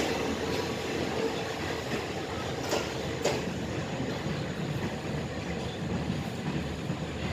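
Passenger train running on the rails, a steady rumble with two sharp clicks a little over half a second apart about three seconds in, like wheels passing over a rail joint.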